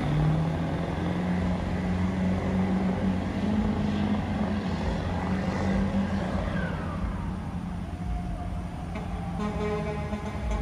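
Pickup truck engine running at high, fairly steady revs while the truck spins donuts through floodwater.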